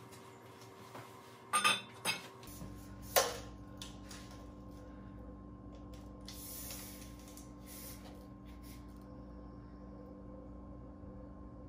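Steel tubing clanking: three sharp metallic clanks in the first few seconds as the tubes are knocked and set down on a concrete floor, then softer metal-handling noise around the middle.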